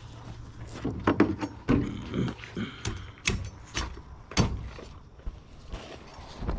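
Machete chopping into an alligator gar's hard, armoured scaled skin: a series of sharp, irregular knocks, about eight strikes, clustered in the first half.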